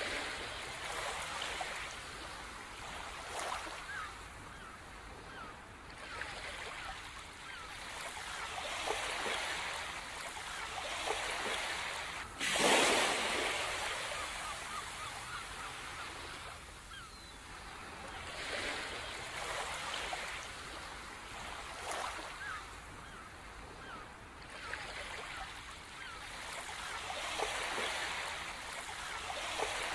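Sea waves breaking and washing onto a shore in swells every few seconds, the biggest about twelve seconds in, with birds calling faintly over them.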